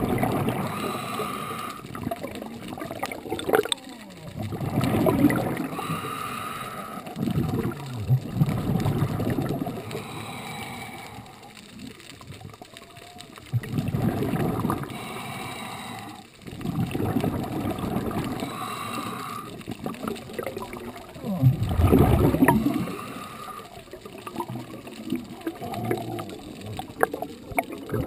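Water gurgling and sloshing around a GoPro camera in its waterproof housing, rising and falling every few seconds.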